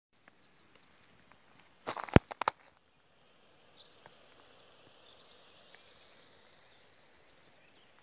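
A quick run of sharp clicks and cracks about two seconds in. Then a faint steady hiss with a few light crackles from a wood fire of embers burning under a cooking pot.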